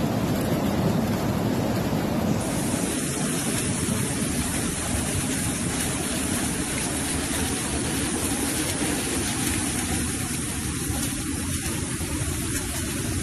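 Floodwater rushing down a street in a continuous loud torrent, a steady noise with no breaks.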